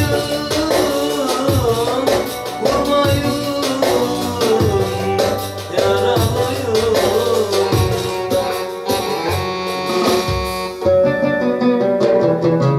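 Electronic keyboard playing a gliding song melody over a drum accompaniment.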